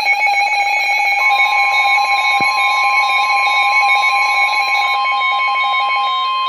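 Weather radio emergency alert tones: a loud, steady electronic alert tone, with a second, higher steady tone joining about a second in, and a rapid on-off beeping pattern near the end. The tones are the attention signal that comes ahead of a severe weather warning broadcast.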